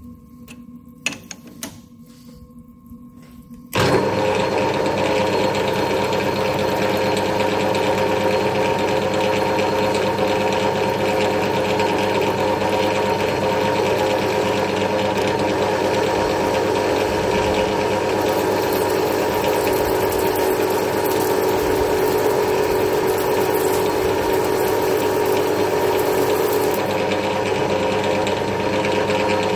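A few light clicks as the lathe's tool post is set by hand. About four seconds in, the metal lathe starts suddenly and runs with a steady machine hum, turning a screw blank in the chuck.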